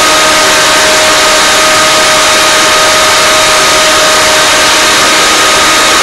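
Waring Margarita Madness blender's motor running steadily at full speed, churning a jarful of frozen fruit: a loud rushing hiss with a steady whine through it.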